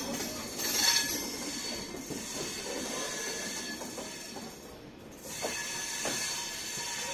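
Wheels of an Indian Railways passenger coach running slowly over the tracks and points out of the station, heard from the open door: a steady rolling hiss with a thin squeal that swells about a second in and again from about five seconds in, with a few knocks near the end.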